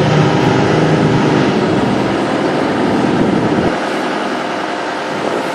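Aircraft engines passing loud and low, with a heavy rumble that drops away abruptly nearly four seconds in, leaving a quieter engine sound.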